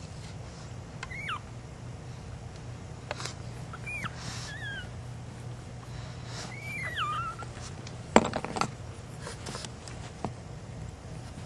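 Pug puppy whimpering in about four short, high squeaks that rise and fall in pitch over the first seven seconds. A cluster of sharp knocks and rustles comes about eight seconds in, over a steady low hum.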